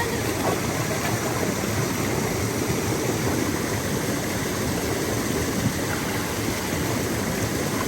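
Steady rush of a small waterfall's water pouring over rocks.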